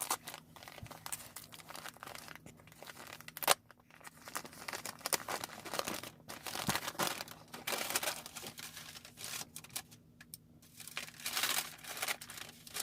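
Packing tape and wrapping on a taped-up mail package being torn and crumpled by hand, in irregular crinkling bursts, with one sharp snap about three and a half seconds in.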